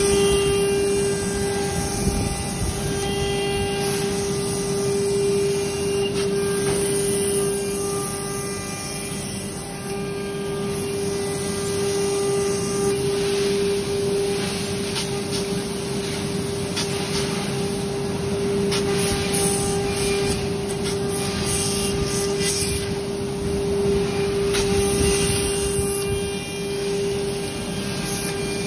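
CNC router spindle running with a steady hum while its end mill cuts grooves in 15 mm acrylic sheet. The cutting noise swells and fades as the tool moves along the cuts.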